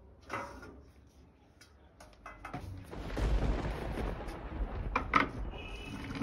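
Rumbling, rustling handling noise from clothing brushing against the phone microphone while folding furniture is set up, with a knock about half a second in and two sharp knocks about five seconds in as the wooden stool and chairs are moved.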